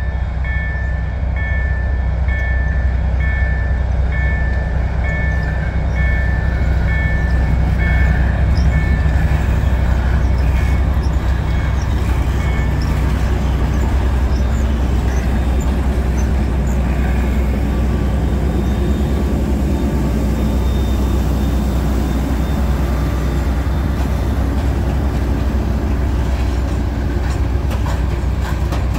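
M62 'Gagarin' diesel locomotive, a Soviet-built twin unit with two-stroke engines, running loud and low as it passes close by, followed by loaded freight wagons rolling over the rails. A level crossing warning signal beeps in steady pulses for about the first twelve seconds.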